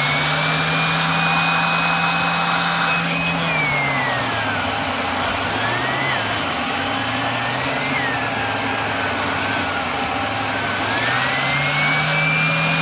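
Kirby Ultimate G upright vacuum's 7-amp direct-air motor running on its high speed, drawing air through the hose to spin an air-powered turbo brush tool. Its high whine holds steady at first, then drops and climbs back in pitch several times, and settles back to full pitch near the end.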